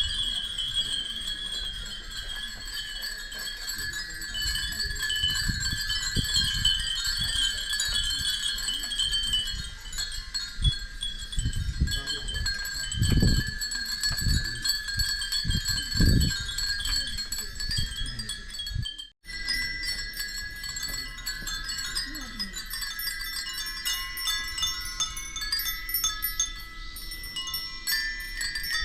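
Many Japanese fūrin wind chimes tinkling together, lots of small bell tones overlapping in the breeze. There are a few loud low rumbles about halfway through. After a short break the tinkling carries on with a different set of tones.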